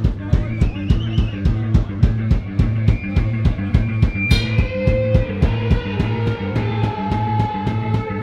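Live rock band playing an instrumental passage: a drum kit keeps a steady beat of about four hits a second under electric bass and electric guitar holding sustained notes, with a cymbal crash about four seconds in.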